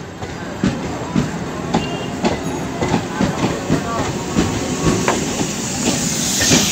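Electric suburban local train (EMU) running past close by, its wheels clattering over the rail joints in a steady run of knocks. A hiss swells near the end.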